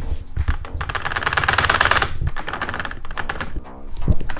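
A plastic office-chair armrest worked by hand, its adjustment mechanism giving a rapid run of clicks for about a second, a second in, among scattered clicks. The armrest is a little bit flimsy.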